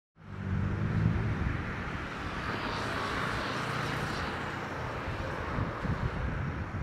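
Steady, distant jet noise from a Boeing 747-400F freighter on final approach. It fades in from silence right at the start and then holds a low, even rumble.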